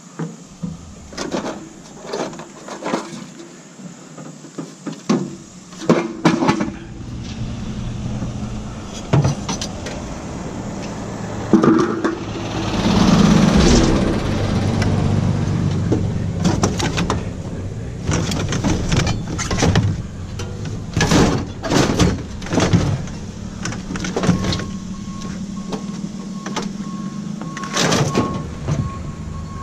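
A vehicle's engine running, with repeated knocks and clatters of metal and doors throughout. A thin beeping tone joins in about three quarters of the way through.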